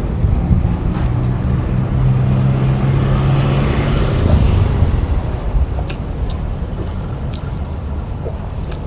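A motor vehicle's engine running close by: a steady low hum that fades away after about four seconds, with a few light clicks later on.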